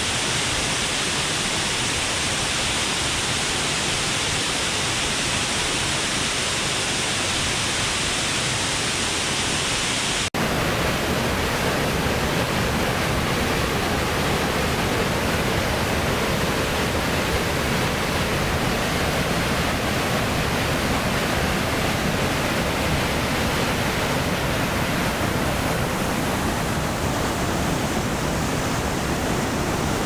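Steady rushing of a waterfall, an even roar of water with no other sounds. About ten seconds in it cuts abruptly to a fuller, deeper rush of water.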